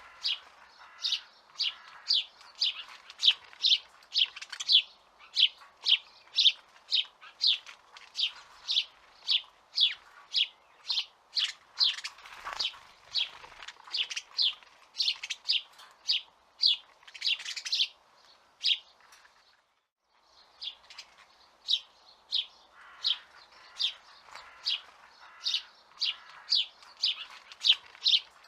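A bird chirping over and over: short, sharp chirps about twice a second. The chirping stops for about a second roughly two-thirds of the way through, then resumes.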